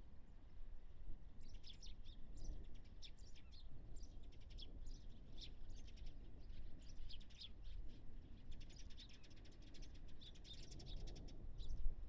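Eurasian tree sparrows chirping: many short, high chirps in quick clusters, starting about a second in, over a steady low rumble.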